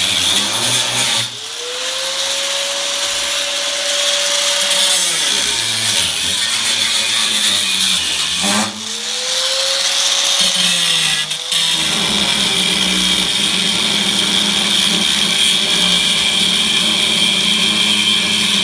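Handheld gas torch burning with a steady loud hiss while heating old brass brazing on the quarter panel. Twice a tone rises, holds and falls away over a few seconds.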